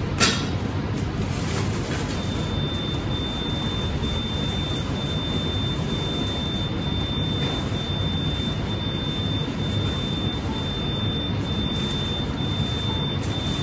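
A steady, even background noise, like room ventilation hum and hiss. From about two seconds in, a thin high-pitched whine sits on top of it, broken by short gaps, and a single sharp click comes right at the start.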